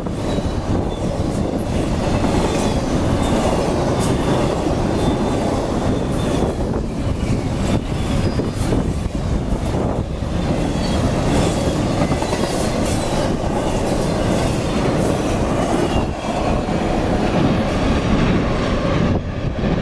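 CSX intermodal freight train rolling past at close range: a steady loud rumble and clatter of wheels over the rails, with faint high wavering squeals from the wheels.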